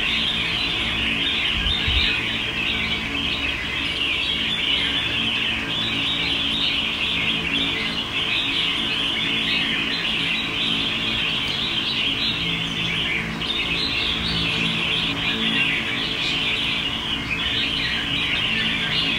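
Many caged songbirds chirping and chattering at once in a dense, continuous chorus, with a faint low steady hum beneath.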